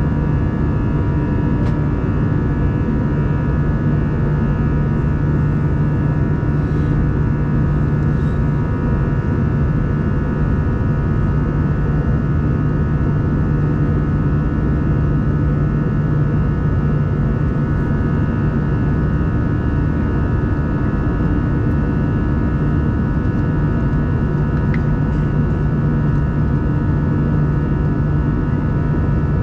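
Airbus A320 airliner cabin in flight: the steady drone of the jet engines and airflow, with a strong low hum and several steady higher tones over it.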